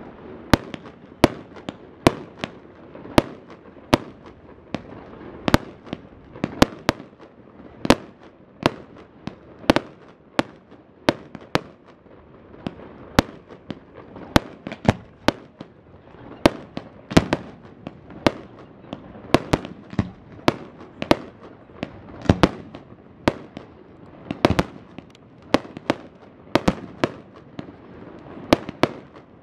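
Fireworks display: aerial shells launching and bursting in a fast, irregular string of sharp bangs, about one to two a second, over a steady background noise.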